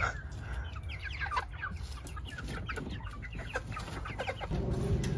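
Chickens clucking in many short, scattered calls as they are chased back into their coop.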